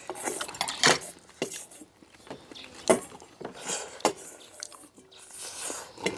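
Close-miked eating sounds: chewing rice and soup, with a few sharp clinks of metal spoons against stainless steel bowls.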